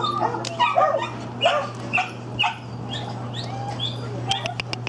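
Dogs barking in a kennel yard: short barks about every half second for the first three seconds or so, over a steady low hum. A quick run of sharp clicks comes near the end.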